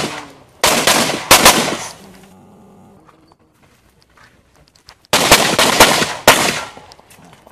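Handgun shots fired in rapid strings: a few sharp shots in the first second and a half, a pause of about three seconds, then another quick string starting about five seconds in.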